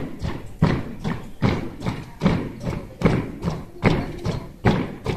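Boots of a marching column stamping in step on pavement: a steady rhythm of thuds, a heavier stamp about every 0.8 seconds with lighter footfalls between.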